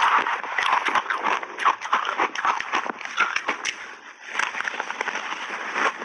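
Shaved ice being crunched and chewed in big mouthfuls, a dense run of crisp crackles and crunches with a short lull about four seconds in.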